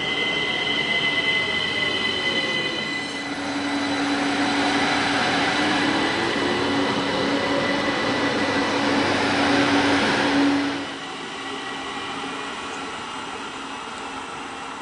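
ÖBB class 4124 Talent electric multiple unit passing close at speed, with a rush of wheels and air and a high whine that falls in pitch as it goes by. The noise drops off sharply about eleven seconds in, leaving a lower rumble as the train runs away down the line.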